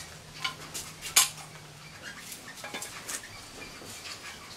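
Irregular light clicks and taps of a cinnamon peeler's metal hand tools working cinnamon branches, the loudest about a second in.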